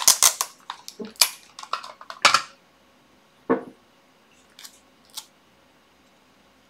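Adhesive tape pulled off its roll and torn, a quick run of sharp crackling rips over the first couple of seconds, then a few fainter scattered ticks as the tape is handled on paper.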